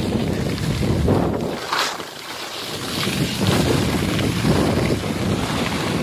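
Wind buffeting the microphone of a camera carried by a moving skier, a low rushing that swells and dips, with skis hissing and scraping over the snow.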